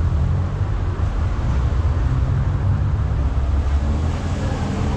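Steady low engine hum of a motor vehicle running, with street noise over it.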